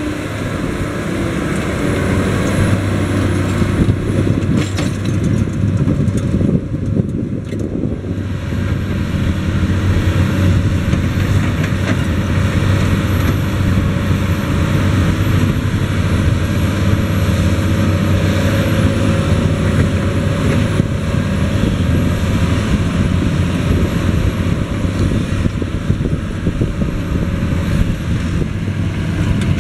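Challenger MT765 rubber-tracked tractor's diesel engine running steadily under load as it drags a laser-controlled levelling bucket full of soil, a deep constant hum.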